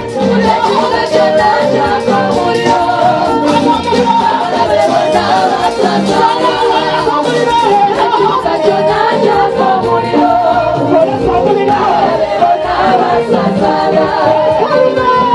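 Congregational praise singing: many voices singing together over loud music with a dense, steady beat.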